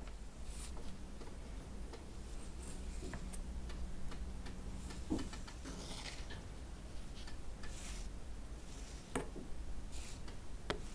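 Soft scraping of a metal offset spatula across moistened rice flour and against a stainless steel cake ring, with a few light clicks and taps of metal on metal.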